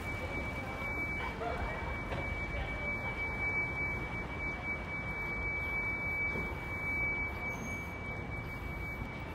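Quiet city street ambience with a steady high-pitched tone over it.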